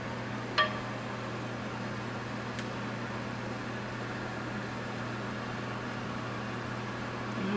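Steady background hum and hiss, like a running fan. About half a second in, a utensil clinks once with a short metallic ring against the stainless skillet as sauce is scraped out. A fainter tick follows a couple of seconds later.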